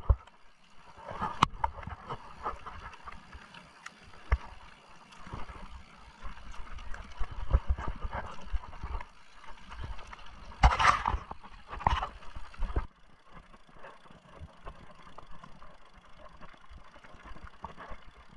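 Mountain bike riding over a rough trail: tyre noise on dirt and stones with frequent knocks and rattles from the bike, and two louder rushes of noise about two-thirds of the way through.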